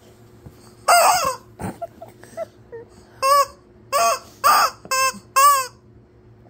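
Squeaky rubber chicken dog toy squawking as a dog bites and squeezes it: one long squawk about a second in, then five short squawks in quick succession in the second half. The squawks are loud.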